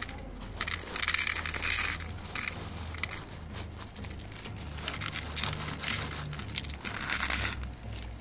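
A plastic bag of dry cat kibble crinkling in several irregular bursts, with kibble rattling onto plastic plates and cats crunching the dry food.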